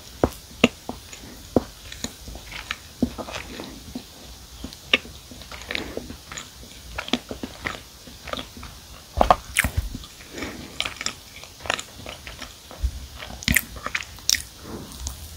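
Close-miked eating of a soft matcha cookie stuffed with marshmallow: chewing with sticky mouth sounds and many small crunchy clicks, a dense cluster of them around the middle.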